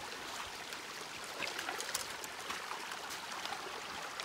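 A small, shallow mountain stream trickling steadily over stones, with a few faint light clicks.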